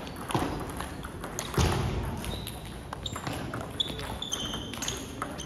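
Table tennis ball clicks: paddles striking the celluloid/plastic ball and the ball bouncing on the table, as sharp knocks at irregular intervals, with a few short high squeaks mixed in.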